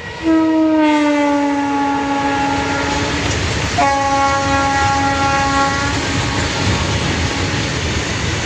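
Locomotive horn sounding two long blasts, the first falling slightly in pitch, over the steady rumble and clatter of a passing freight train.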